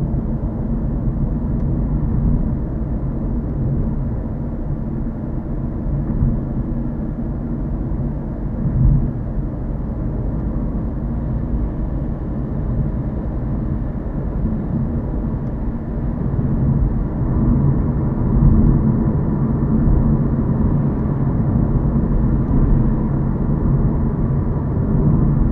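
Steady low road noise heard from inside a moving car: engine hum and tyre rumble on asphalt, swelling a little about nine seconds in and again later.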